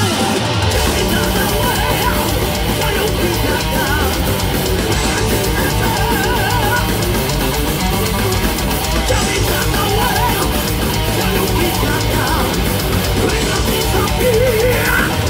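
Heavy metal band playing live: distorted electric guitars over bass and drum kit, with a high lead line wavering in pitch over the dense, steady wall of sound.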